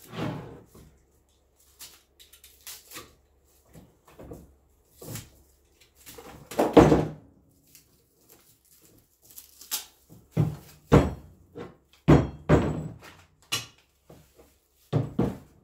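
Steel front-suspension parts from a universal kit clunking and knocking on a workbench as they are worked apart by hand: irregular single knocks, the loudest about seven seconds in, with several more in quick succession in the second half.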